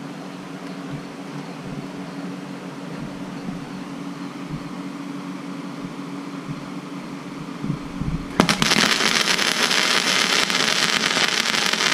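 Flux-core wire welder arc striking about eight seconds in and crackling steadily for about three and a half seconds as a tack-and-bead weld is laid, then cutting off. Before the arc there is only a steady hum.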